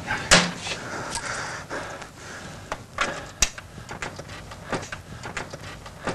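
Household knocks and clatter: one sharp knock just after the start, then a few scattered lighter clicks and knocks.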